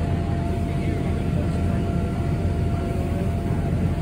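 Steady low rumble of outdoor background noise, with a faint steady tone above it.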